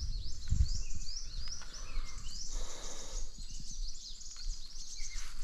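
Small birds chirping over and over in quick, high, sweeping notes, with a low rumble of wind or handling on the microphone.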